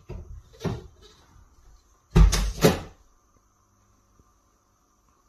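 A cat jumping up and hanging from a door's lever handle: a thud at the leap and claws scrabbling on the door, then two loud knocks about two seconds in as the handle goes down and the door unlatches and swings open.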